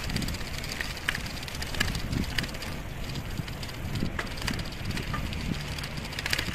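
Footsteps on a paved path at a walking pace, a step about every two-thirds of a second, over a low rumble of wind on the microphone.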